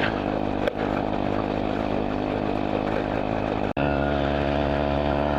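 Riga moped's small two-stroke engine running steadily under way, with a momentary break in the sound about two-thirds of the way in.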